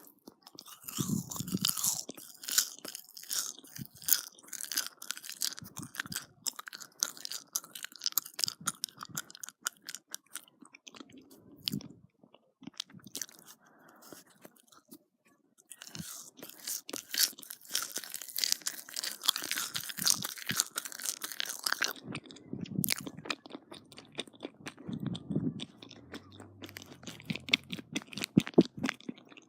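Close-miked chewing of marshmallows: dense runs of small mouth clicks and crackles, quieter for a few seconds in the middle.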